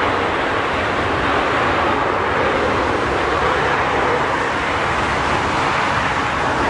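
Large jet airliner's engines running during landing: a steady, even rushing noise.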